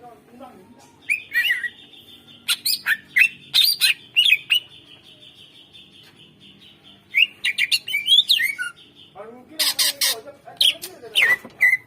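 Cucak ijo (green leafbird) singing energetically: clusters of quick whistled notes and sliding chirps, with harsh rasping bursts about ten seconds in.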